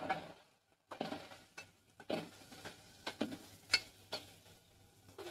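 Steel ladle stirring sliced potatoes in an aluminium pressure cooker, making a string of irregular scrapes and knocks against the pot.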